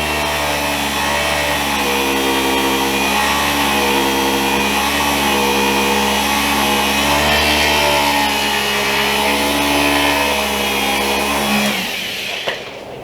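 Electric handheld massager running with a steady motor hum that wavers slightly in pitch, then cuts off near the end, followed by a sharp click.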